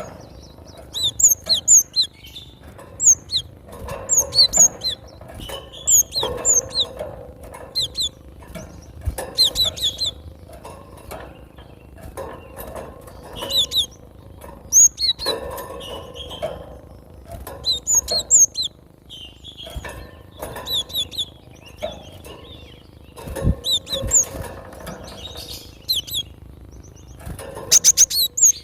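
Cinereous tit (gelatik batu) calling: short, sharp high-pitched chirps in quick clusters, repeated again and again, ending in a fast rattling trill. Rustling runs underneath, and there is a single sharp knock about two-thirds of the way through.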